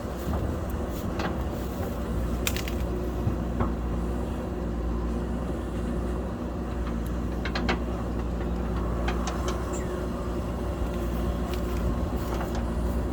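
JCB backhoe loader's diesel engine running steadily under load, with a few sharp metallic clanks and clicks now and then.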